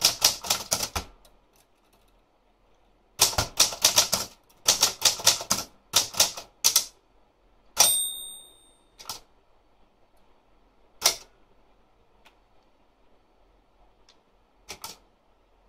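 Olympia Traveller De Luxe manual portable typewriter: keys struck in quick runs of clacks with short pauses between them. Its bell rings once about eight seconds in, followed by a few single key strikes with long gaps.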